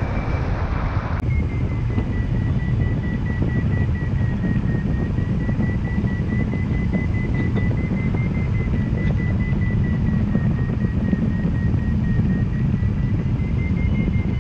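Wind rushing over the microphone of a camera mounted on a hang glider in flight, a steady low rumble of airflow. A thin, slightly wavering high tone runs over it from about a second in, where the sound changes abruptly.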